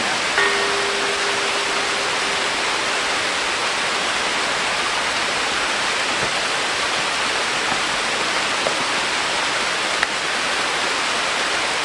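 Steady rushing of a waterfall, an even roar of falling water. A faint steady tone sounds briefly near the start.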